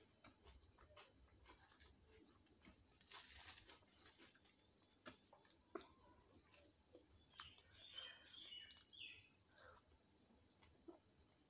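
Quiet eating sounds: chewing and small wet mouth clicks while fried puri and chole are eaten by hand. A louder crisp tearing rustle comes about three seconds in, as a piece of puri is torn off.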